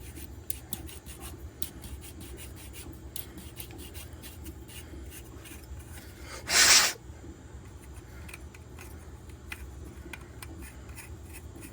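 Threaded 3D-printed plastic parts being screwed together by hand, the tight threads scraping and clicking as they are worked in. About six and a half seconds in there is a brief, loud rush of noise.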